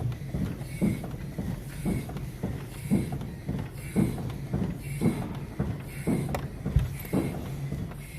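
Renault T truck cab being rocked on its suspension, giving a knock or creak about once a second over a steady low hum: the cab knock the mechanics are trying to trace.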